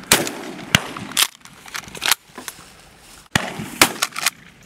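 Shotgun shots at flying doves: several sharp reports at irregular intervals, spread through the few seconds.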